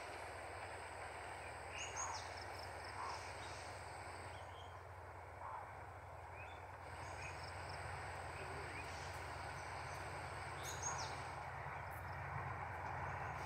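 Faint low rumble of an approaching EMD GT38ACL diesel-electric locomotive, growing a little louder in the second half. Over it, birds chirp in short calls, with high falling chirps about two seconds in and again near the end.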